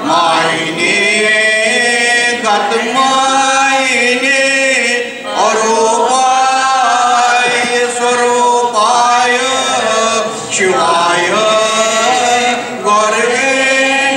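Several voices chanting a Sanskrit guru-vandana hymn together, in long sustained phrases broken by short pauses for breath.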